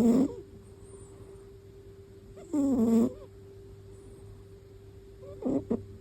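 A sleeping cat snoring: a pitched, buzzing snore with each breath, about every two and a half seconds, the last one short and broken in two.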